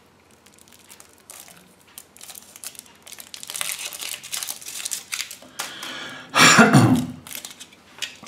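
Thin foil wrapper being peeled off a Kinder Surprise chocolate egg, crinkling, with a louder burst of crinkling about six and a half seconds in.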